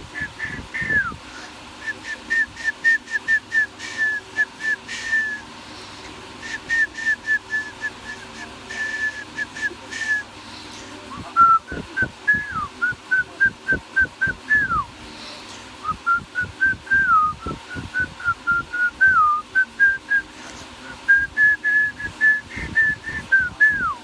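Whistling: long runs of quick short notes at one pitch, broken now and then by a note that slides down, with a few pauses.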